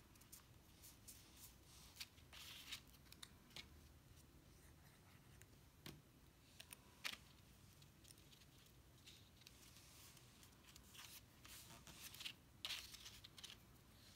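Faint rustling, crinkling and small ticks of card stock being folded and creased by hand, with a louder cluster of crinkles about twelve seconds in.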